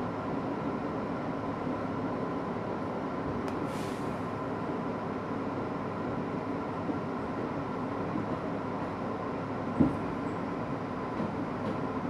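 R62A subway train running at speed on elevated track, heard from the front car: a steady rumble of wheels on rail with a steady whine. A brief hiss comes about three and a half seconds in, and a single sharp knock about ten seconds in.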